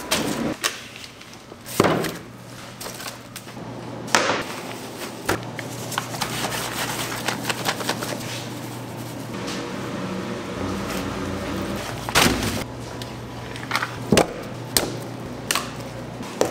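Raw pork cuts, bagged and unbagged, handled on steel counters and in plastic tubs: several sharp thuds and knocks as the meat is set down and pressed, over a steady low hum.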